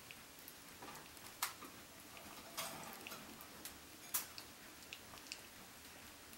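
Faint, scattered clicks and light knocks in a quiet room, with three sharper ones about a second and a half, two and a half and four seconds in.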